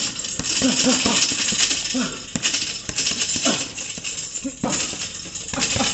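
Boxing gloves striking a double-end bag in quick, irregular combinations, the bag slapping back off the gloves. Short squeaks come between the punches.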